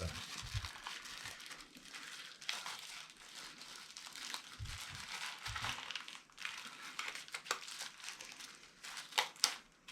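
Plastic packaging crinkling and rustling as parts are handled, with a few sharp clicks and a couple of dull knocks.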